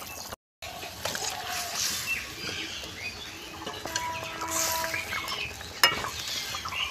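Thin fish-curry broth boiling and bubbling in a metal pan as pieces of fried foli fish are slid in and stirred with a metal ladle, with one sharp knock near the end. The sound drops out for a moment just after the start.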